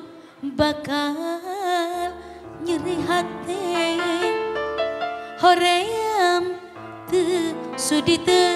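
Live band playing a Sundanese pop (dangdut) song: a woman sings long phrases with vibrato into a microphone, over held electric keyboard chords and strokes on kendang hand drums.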